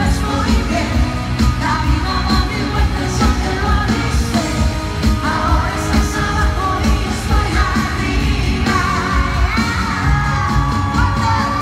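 Female lead singer performing live with a pop-rock band, heard from within the audience. Near the end she holds one long note.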